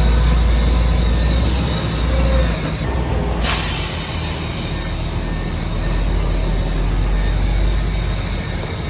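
Heavy diesel earthmoving machinery running steadily under load, with a brief high squeal about two seconds in, like steel tracks or brakes.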